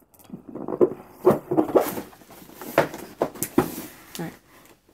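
A cardboard retail box being handled and turned over on a wooden tabletop: a run of sharp knocks and short scrapes as the box is lifted and set back down on its side.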